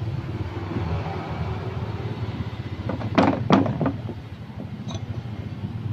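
A steady low engine-like hum, with two short sharp knocks about a third of a second apart roughly three seconds in.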